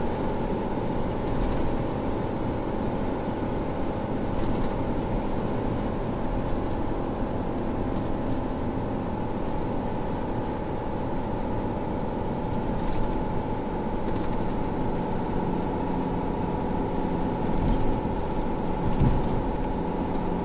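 Steady road and engine noise of a car cruising on an expressway, heard from inside the cabin, with a low rumble and a faint steady hum.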